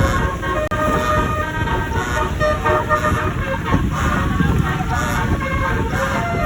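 A bus's musical multi-tone "telolet" horn (basuri type) playing a stepping melody of several tones at once, over the bus's engine and road rumble.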